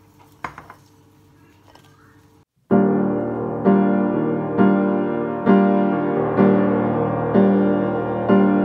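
A brief clatter about half a second in over low room sound, then, after a short drop-out, background piano music with a note or chord struck about once a second.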